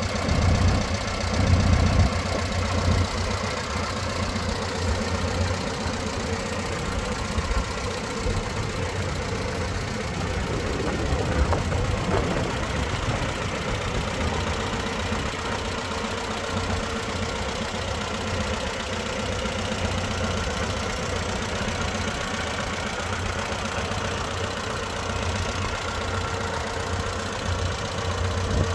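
1966 Case 530 tractor's LP-gas four-cylinder engine idling steadily, with the engine newly brought back to running.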